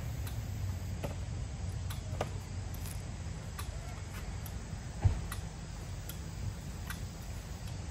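Scattered light clicks and ticks over a steady low rumble, with one sharp thump about five seconds in.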